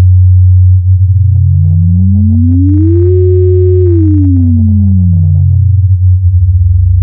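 Sine-wave tones from a home-made Java software synthesizer: a steady low hum, with a second oscillator's tone gliding up, holding for about a second at its peak, then gliding back down as its tone control is dragged. Faint crackles sound while the pitch moves. The sweep shows the tone parameter changing the oscillator's frequency as intended.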